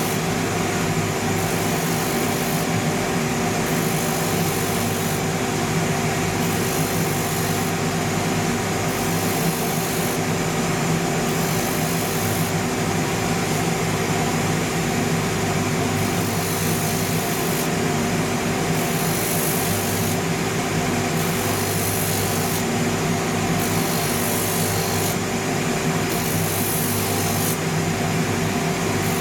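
Shoe finishing machine running steadily, its motor and dust extraction humming, while a worn rotary sandpaper disc smooths the grain side of a leather outsole, the sole pressed to the spinning disc at times.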